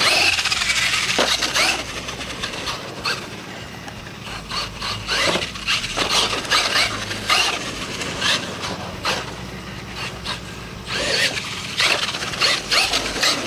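Radio-controlled monster truck driving on a dirt track: repeated knocks and scrapes from its tyres and landings, with a brief falling motor whine near the start.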